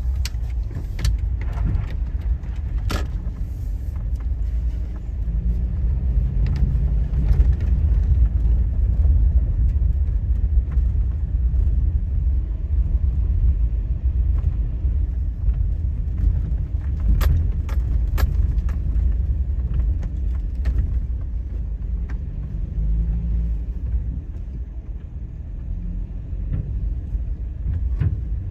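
A vehicle on the road gives a steady low rumble. A few sharp clicks and rattles come near the start and again about two-thirds of the way through.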